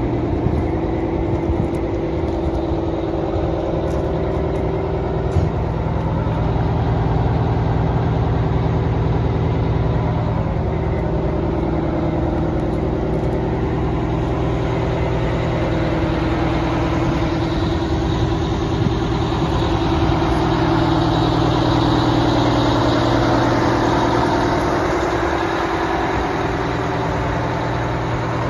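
Oshkosh M1070 truck tractor's two-stroke Detroit Diesel 8V-92TA V8 engine idling steadily, a little louder in the middle stretch.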